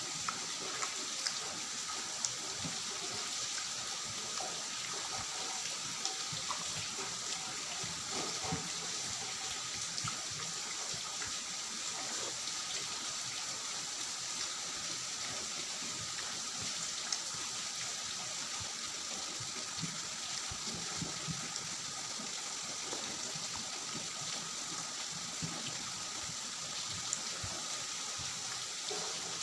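Eating rice and pumpkin curry by hand: fingers mixing food on a steel plate and chewing, heard as scattered faint clicks and smacks over a steady hiss.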